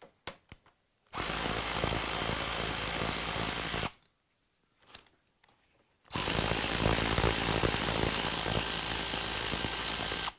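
Cordless power drill-driver spinning out the rear foot peg bracket bolts, in two steady runs of about three and four seconds, with a few small clicks of handling before them.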